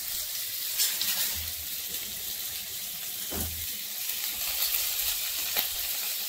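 Onions and green chilli frying in oil in a steel kadai, a steady sizzle, with a few light knocks, a steel ladle against the pan as stirring begins near the end.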